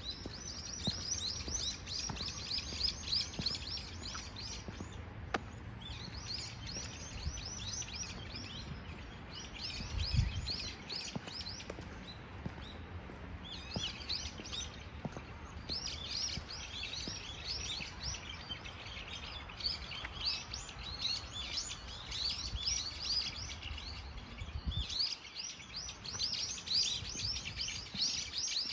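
A flock of small birds chirping in dense, overlapping runs of quick high calls, with short pauses between runs. A single low thump comes about ten seconds in.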